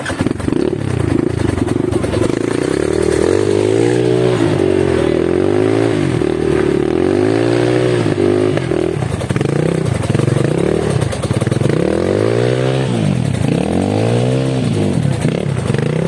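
Trail motorcycle engine under way, its pitch rising and falling over and over as the throttle is opened and closed every couple of seconds.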